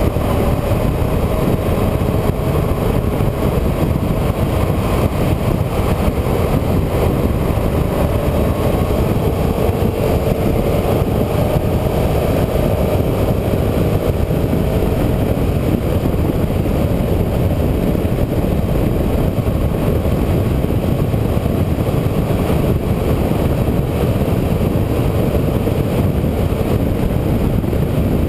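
A motor vehicle driving along a road: its engine runs steadily under continuous road and wind noise, with the engine pitch drifting slightly up and down.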